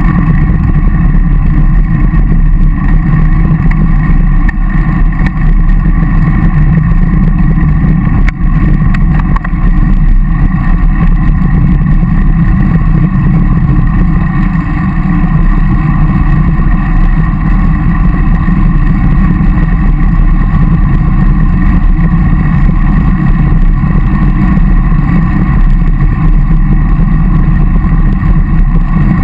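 Steady, loud wind buffeting and road rumble on a bicycle-mounted camera's microphone while riding, with a couple of brief dips about eight and nine seconds in.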